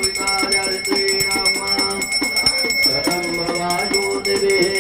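Music: a melody moving in quick steps, with a steady bell-like ringing held over it.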